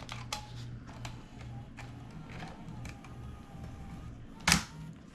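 Small plastic clicks and rattles of a camcorder being handled while a battery pack is fitted, with one louder click about four and a half seconds in, over a steady low electrical hum.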